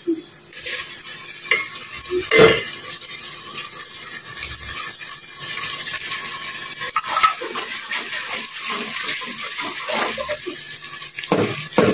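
Onion, garlic and ginger sizzling in hot ghee in a metal pot, with a knock about two and a half seconds in as chopped tomatoes go in. A metal ladle then stirs the masala, scraping and clicking against the pot.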